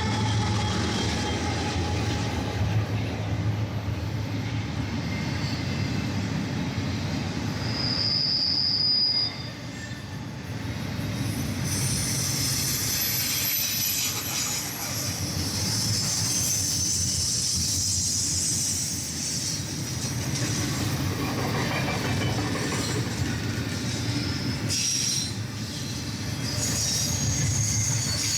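BNSF freight train rolling past with a steady low rumble of wheels on rail. High-pitched wheel squeal comes in briefly about a third of the way through and then runs through most of the second half.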